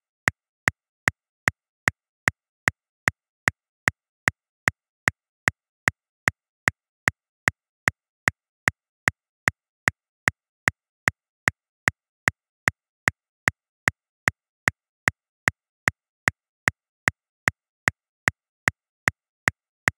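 Metronome clicking steadily at 150 beats per minute: short, sharp clicks about two and a half a second, with silence between them.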